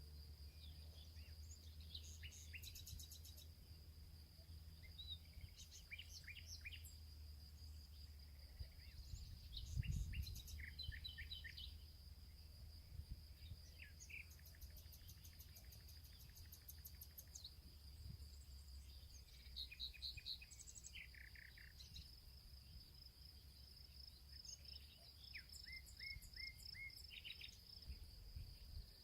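Faint birds chirping in scattered short runs of quick notes, over a steady high-pitched tone and a low hum, with a soft thump about ten seconds in.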